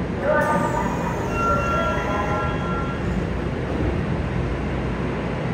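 Subway train's doors and the platform screen doors closing: a sharp clunk about half a second in, then a few seconds of chiming tones, over the steady running noise of the stopped train.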